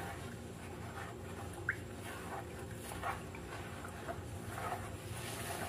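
Metal spoon stirring and scraping in a plastic tub of water, mashing softened panela to dissolve it: faint sloshing and scraping over a steady low hum, with one short high squeak a little under two seconds in.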